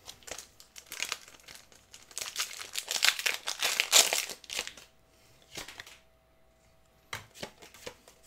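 Foil Pokémon booster pack wrapper crinkling and tearing as it is opened, loudest about three to four seconds in. Near the end come a few sharp clicks of cards being handled.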